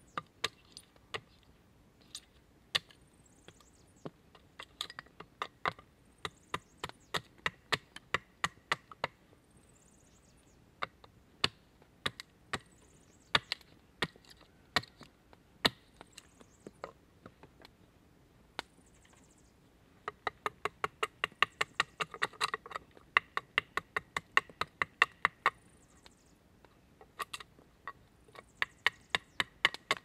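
Axe chopping into a log: a series of sharp wooden chops, scattered at first and then a fast run of about three strokes a second partway through. A faint, high, falling bird call repeats in the background.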